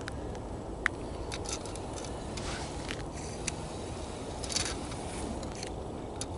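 Small clicks and rustles of hands handling a winter fishing rod and its line at an ice hole, over a steady low rumble. One sharp click about a second in.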